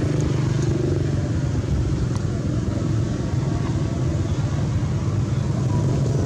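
Steady low drone of a motor vehicle engine running, with no clear rise or fall.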